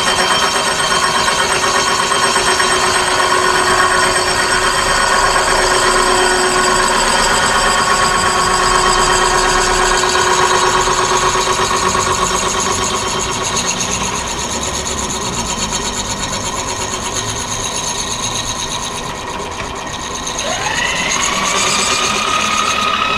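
Milling machine running a circular cutting blade through the brazed filler on a gear, cutting a new tooth: a steady machining whine made up of several tones. About 20 seconds in, a whine rises in pitch and then holds.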